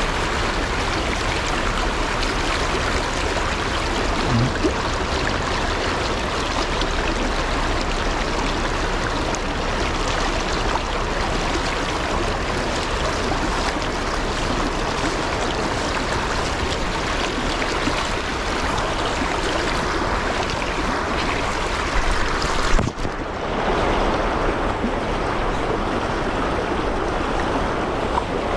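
River current rushing and rippling over rocks, a steady noise of flowing water. About 22 seconds in there is a short bump, after which the sound turns duller.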